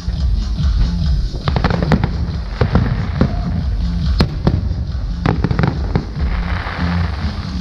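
Aerial fireworks shells bursting in quick, irregular succession, sharp cracks and booms over a dense low rumble.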